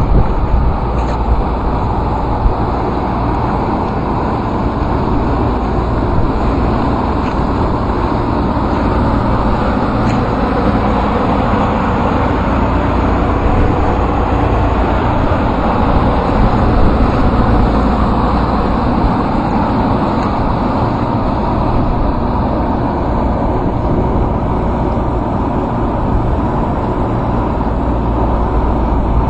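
Rooftop chiller running inside its acoustic steel sound enclosure: a steady mechanical noise with a deep hum and faint steady tones. It cuts off suddenly at the very end.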